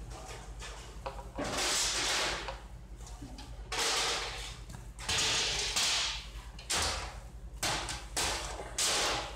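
Hands mixing spiced mashed-potato samosa filling against a large aluminium tray: a run of rough scraping swishes, about seven, each lasting up to a second, over a steady low hum.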